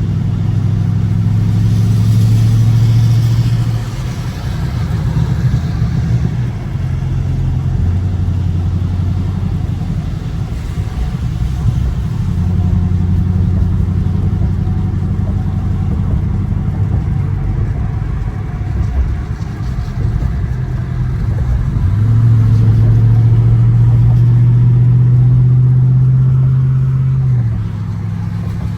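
Dodge Scat Pack's 6.4-litre HEMI V8 droning under way, its pitch stepping up and down several times with shifts and throttle changes. It gets louder near the start and again for about five seconds near the end.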